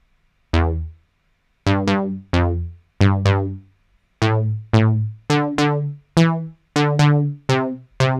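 Moog Model D (Minimoog emulation) synthesizer app playing a short bass line: about a dozen separate notes of varying pitch, each starting sharply and turning dull quickly as the filter closes.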